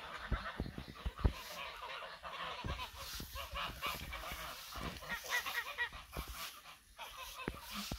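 A flock of white domestic geese honking and cackling, many calls overlapping without a break. A few low thumps sound underneath, the loudest about a second in.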